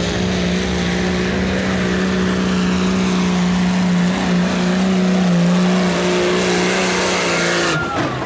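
Modified Dodge Ram pickup's Cummins diesel at full throttle under load, dragging a weight sled and running steadily at high revs. A little before the end the throttle is released and the engine drops off, with a falling turbo whistle.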